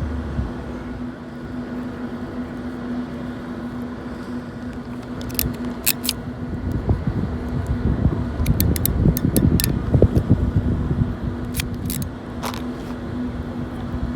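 A steady low hum with sharp clicks over it: a few single ones, then a quick run of them in the middle, and a few more near the end.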